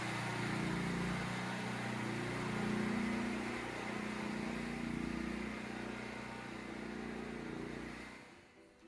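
A steady low rumble with a hiss over it, like a running engine or passing traffic, fading out near the end.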